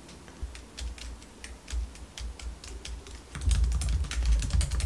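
Typing on a MacBook laptop keyboard: scattered key clicks at first, then a fast, dense run of keystrokes from about three and a half seconds in.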